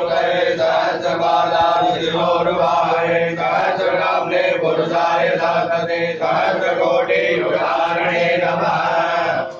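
Hindu puja mantras chanted in a steady, continuous recitation on held tones.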